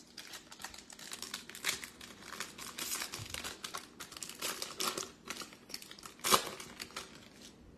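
Shiny foil wrapper of a Topps Stadium Club Chrome trading-card pack crinkling and tearing as it is ripped open by hand: a dense run of irregular crackles, the sharpest about six seconds in.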